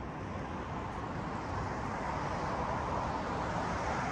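Road traffic on a nearby highway at night: a vehicle's tyre and engine noise swelling as it approaches over the first two or three seconds, then holding steady.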